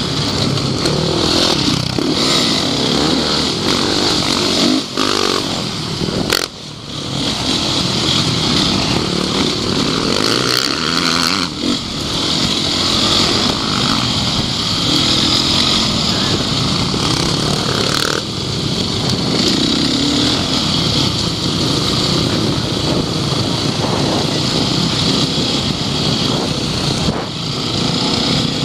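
Onboard sound of a supermoto racing motorcycle's engine under hard use, the revs rising and falling as the rider accelerates and backs off, with wind on the microphone. A sharp knock and a brief drop in the engine sound come about six and a half seconds in.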